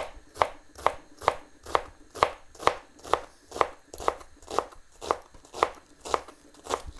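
Kitchen knife finely dicing an onion on a plastic chopping board: a steady run of sharp chopping strokes, about two a second.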